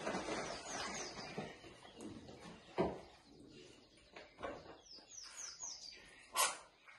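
A small bird chirping in quick runs of falling high notes, about half a second in and again around five seconds. Two short, sharp noises, near three seconds and six and a half seconds, are the loudest sounds, over soft rustling.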